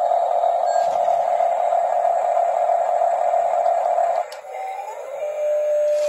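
Double E E581 remote-control articulated dump truck's small electric drive motor and gearbox whining steadily as it reverses, stopping about four seconds in. A short rising whine follows, then a thinner steady whine as the tipping motor starts to raise the loaded bed.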